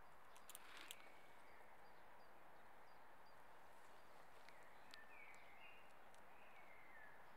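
Faint sharp cracks of a Eurasian red squirrel gnawing a shagbark hickory nut shell, loudest about a second in and once more about five seconds in, over a steady hiss. Faint short falling bird chirps in the second half.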